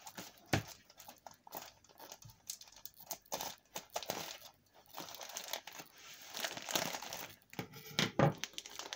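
Plastic mailing bag crinkling and rustling as it is cut open with scissors and pulled apart by hand. The crackling comes in irregular spurts and is loudest near the end.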